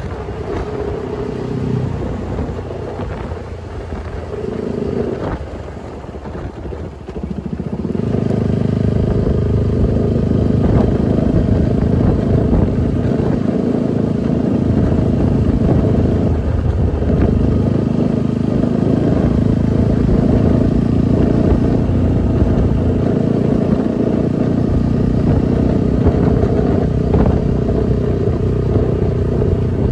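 Husqvarna motorcycle engine running at road speed, with wind rushing over the microphone. About eight seconds in the engine gets louder and then holds steady.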